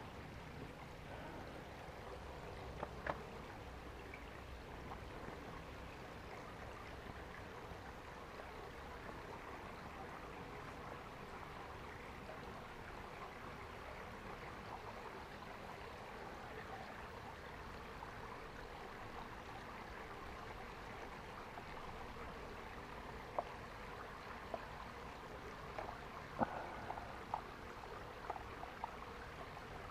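Small stream trickling steadily over stones, with a few light knocks in the last several seconds.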